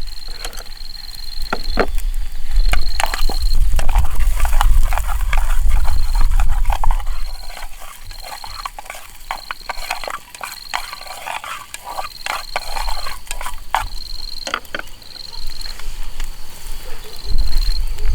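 An insect trilling in short repeated bursts of one high note, with close rustling and clicking over it and a low rumble of wind on the microphone at the start and end.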